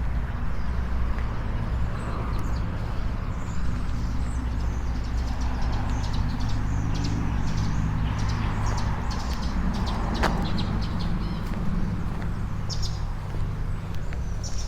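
A steady low hum runs throughout, with short, high bird chirps scattered over it, more of them in the second half.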